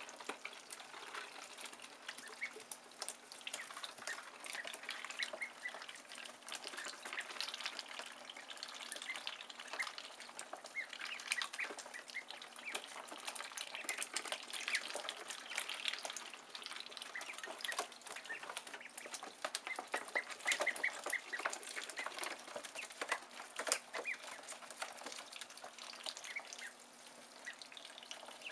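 Ducklings peeping in clusters of short, high chirps, over many small clicks and splashes of their bills dabbling in the water tray.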